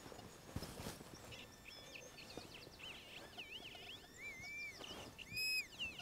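Electronic target tone from an XP MI-6 pinpointer, a high beep whose pitch wavers up and down as the probe is worked over a small iron target. Near the end it settles into a short, louder steady tone.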